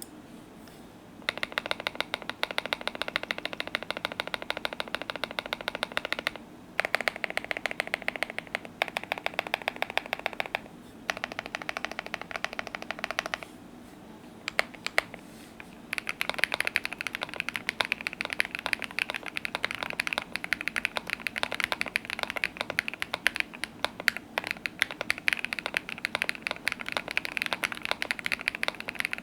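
Fast typing on a Keychron Q1v2 mechanical keyboard with lubed Bolsa Supply Zaku switches on an FR4 plate with foams and tape mod, under Domikey Obsidian keycaps, each keypress ending in a bottom-out clack. It comes in several runs of rapid keystrokes with brief pauses between, running continuously through the second half.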